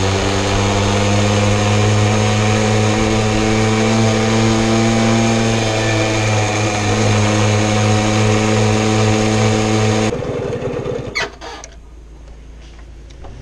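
Jawa Babetta moped's single-cylinder two-stroke engine running steadily under way, heard from the handlebars, then cutting out suddenly about ten seconds in, followed by a few short knocks.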